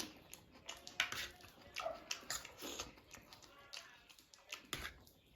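A person eating spicy noodles close to the microphone: irregular chewing and mouth noises with several sharp clicks.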